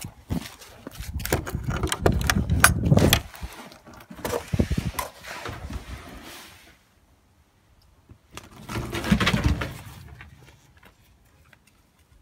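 Footsteps crunching and clicking on snow and a wooden deck, with knocks and rustle close to the microphone, in two spells with a short quiet gap between them.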